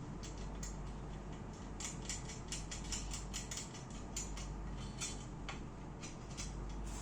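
Irregular light clicks and ticks of small hard parts being handled, several a second at times, over a low steady hum.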